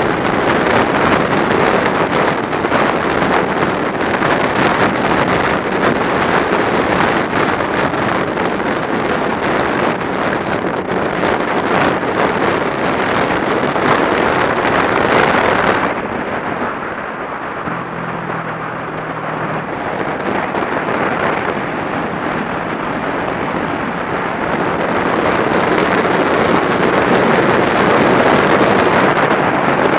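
Wind rushing over the microphone of a sport motorcycle riding at highway speed, with its engine and tyre noise underneath. About halfway through, the wind noise drops and the engine's steady hum comes through, then the wind builds again near the end.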